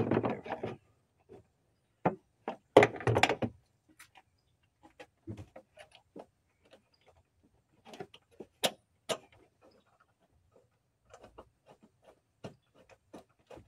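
Irregular clicks, knocks and rattles of a plastic coolant reservoir tank and its mounting bolts being handled and fitted into place, loudest at the start and about three seconds in, with scattered lighter ticks after.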